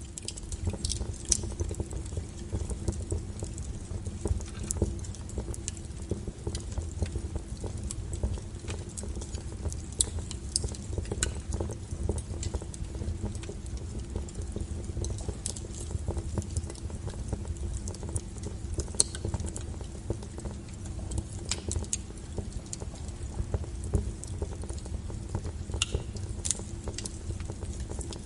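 Wood fire burning with a low rumble and irregular sharp crackles and pops from the burning logs.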